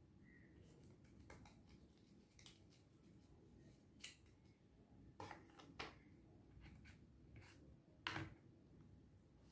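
Faint handling sounds of a phone box and its packaging: a handful of short, sharp clicks and light taps scattered over a low hiss, the loudest about four seconds in and near the end.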